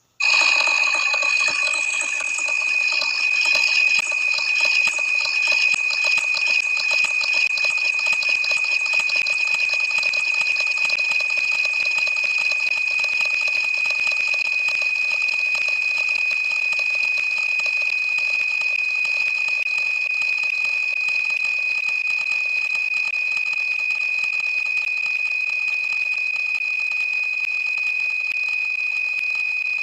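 A dense, continuous wall of overlapping electronic sound effects with one steady high-pitched tone running through it. It cuts in suddenly and holds at an even level without a break.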